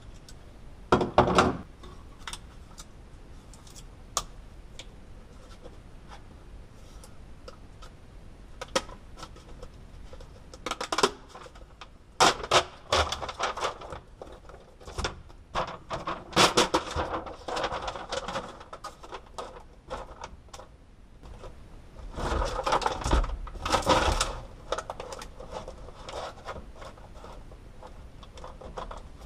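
Crinkling and rustling of a foil-faced Dynamat sound-deadening sheet and its paper backing as they are handled, peeled and pressed onto a car's floor pan, in several bursts with a few sharp knocks between.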